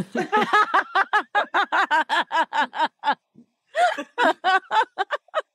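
A woman laughing in a fast run of short 'ha' pulses, about seven a second, breaking off for a moment about three seconds in and then laughing again.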